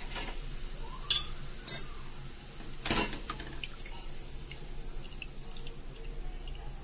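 Hot frying oil dripping back into a kadai from a stainless steel mesh strainer full of just-fried moong dal as it drains. Two sharp metal clinks of the strainer against the pan come about a second in, and a duller knock near the middle.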